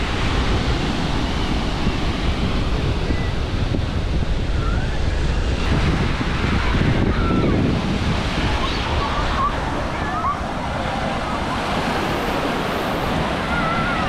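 Big sea waves breaking on a beach: steady surf noise, with wind buffeting the microphone.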